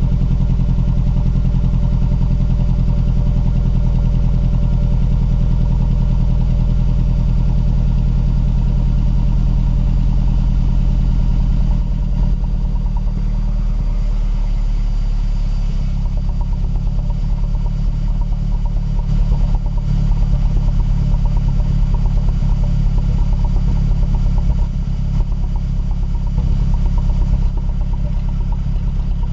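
Mazdaspeed3's turbocharged 2.3-litre four-cylinder engine idling rough after a cold start, which the owner takes for a misfire. About twelve seconds in, the idle drops slightly and turns uneven and pulsing.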